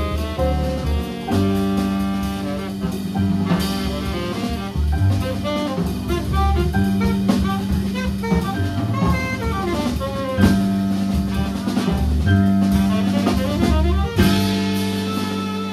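Live jazz from a small band: a keyboard playing over drums and cymbals, with a low bass line underneath.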